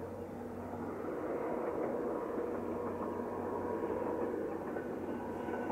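ADtranz/Bombardier DE2000 diesel-electric locomotive hauling a passenger train, a steady drone with an engine hum that grows a little louder about a second in.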